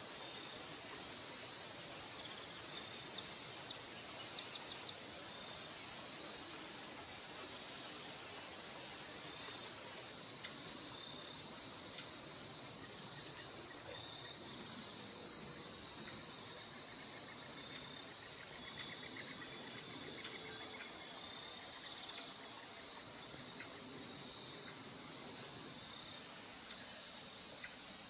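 Insects chirping in a steady high-pitched chorus that pulses in short, even repeats, over a constant hiss of moving water.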